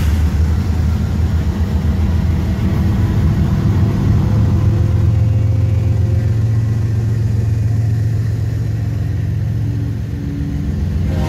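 Norfolk Southern GE ES44AC diesel-electric locomotive passing close by, its 12-cylinder GEVO engine a steady, loud low rumble. Near the end it gives way to the lighter rolling of boxcars.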